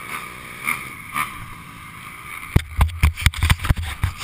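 Rapid, irregular knocks and bumps on a helmet-mounted camera from about two and a half seconds in, as the camera is handled, with faint steady background hiss before them.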